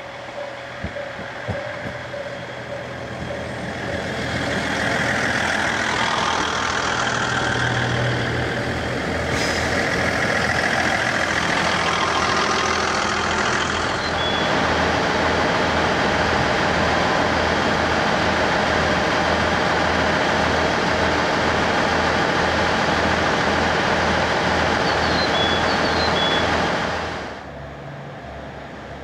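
JR East KiHa 110 series diesel railcar running. Its diesel engine is loud and steady, with a low, regular throb. The sound falls away suddenly near the end.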